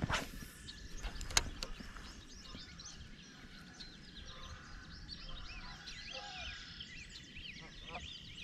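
Small birds chirping and twittering steadily, with a swish and a sharp click near the start from a spinning rod being cast, and a brief distant honk about six seconds in.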